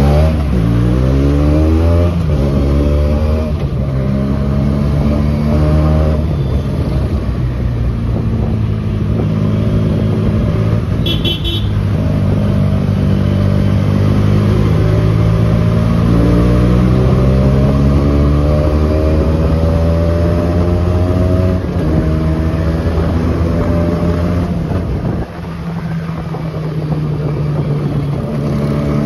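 Benelli motorcycle engine running on the move, its note climbing as it accelerates and falling back as it eases off, over road noise. A brief high-pitched beep sounds about eleven seconds in.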